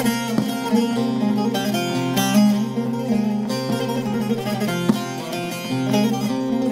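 Background music on a plucked string instrument: quick plucked notes over a steady low note.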